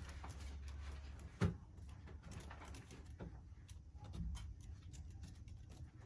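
Light scuffling and small clicks of two kittens clambering about in a basket, with one sharp thump about a second and a half in, over a low steady rumble.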